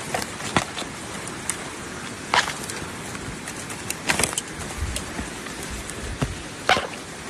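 Several scattered sharp knocks and crackles over a steady outdoor hiss, the loudest near the middle and near the end.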